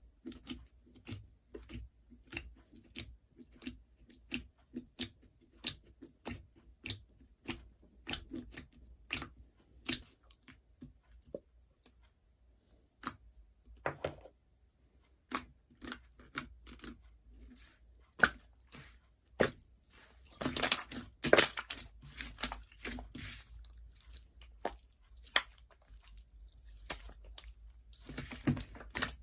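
Slime being squeezed and poked by hand, making a string of short, sharp clicks and pops, with denser crackling stretches about two-thirds of the way through and near the end.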